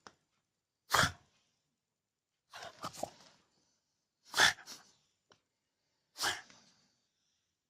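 French bulldog letting out four short, sharp, explosive huffs, about one every second and a half, the second a quick double. These are the outbursts of an annoyed, riled-up dog.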